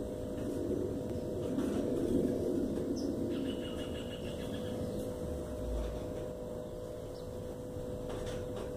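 A few faint bird chirps about three seconds in, over a steady hum and a low, noisy background.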